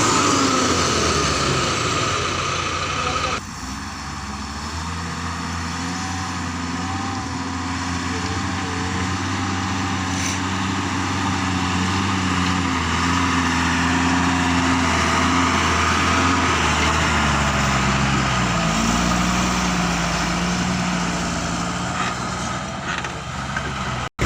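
Heavy diesel engine running, its pitch rising and falling several times as the load changes. The sound changes abruptly about three and a half seconds in.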